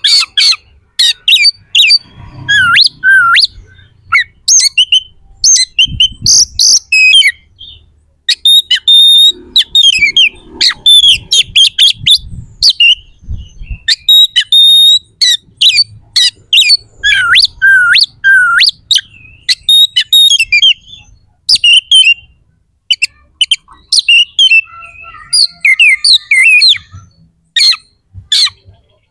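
Oriental magpie-robin (kacer) singing without pause: a rapid, varied string of loud whistles, chirps and harsh rasping phrases broken by short gaps. It is the bird's rough, sharp 'isian' song, used as a bait call to rouse other magpie-robins to aggression.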